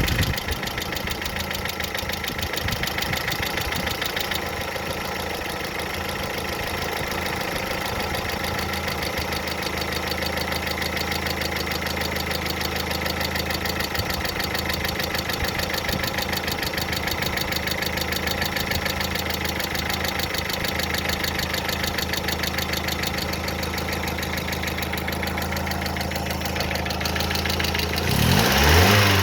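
Car engine idling with a rapid, even clatter of knocking hydraulic valve lifters, caused by water getting into the engine oil. Near the end the engine is revved briefly and settles back.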